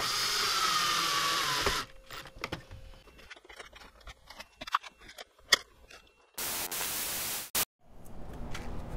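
Cordless drill driving a screw into a plastic switch housing, its motor whine falling in pitch for almost two seconds before it stops. Scattered light clicks and taps of small plastic parts being handled follow, and about a second of steady hissing noise comes near the end.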